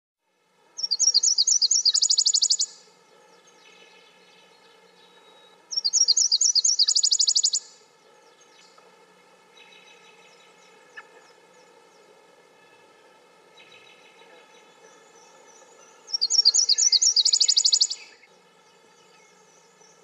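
Nashville warbler singing its two-part song three times: a run of quick, high repeated notes that runs straight into a faster trill. Fainter bird notes sound between the songs over a faint steady hum.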